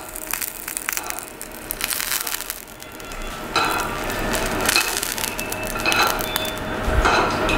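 Irregular crackling and light clicks from a hot pan of roasted sea snails and metal plating tweezers. A steadier, louder noise takes over from about three seconds in.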